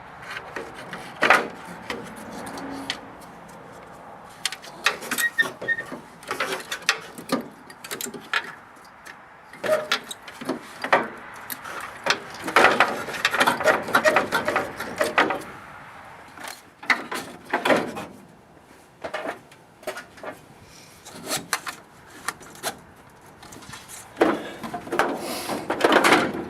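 Irregular scraping, rubbing and clicking as plastic mounting ties are worked through a power steering cooler and the radiator core.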